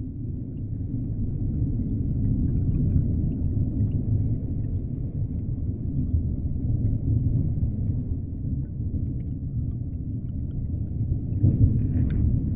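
Deep underwater ambience: a steady low rumble with faint scattered ticks above it. It swells briefly near the end.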